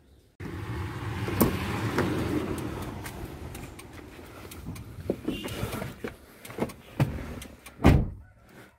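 Clicks and knocks of someone climbing into a Maruti Suzuki Celerio's driver's seat, with handling rustle over them. The car door shuts with a heavy thump near the end.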